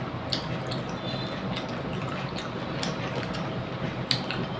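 Fingers mixing rice with mustard-sauce hilsa on a plate, making soft wet squishing sounds with a few light clicks. Near the end a handful is lifted to the mouth and eaten, with a sharper click.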